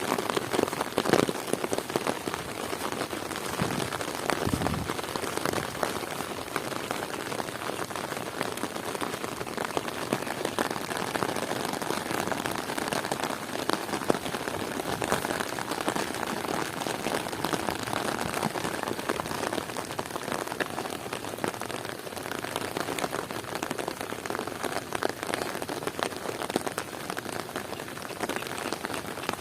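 Heavy rain falling steadily, a dense patter of individual drops hitting surfaces. There are brief louder low sounds about a second in and again around four seconds in.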